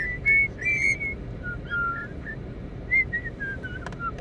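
A small pet parrot whistling: a string of short, clear whistled notes hopping between a few pitches, with a couple of sharp clicks near the end.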